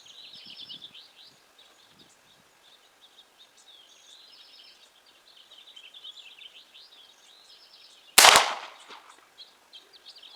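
A single shot from an 1873 lever-action rifle in .45 Long Colt about eight seconds in, with a short echo trailing off. Birds chirp throughout.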